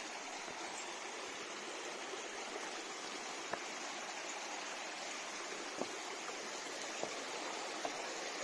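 Steady rush of a mountain stream's flowing water, with a few faint clicks over it.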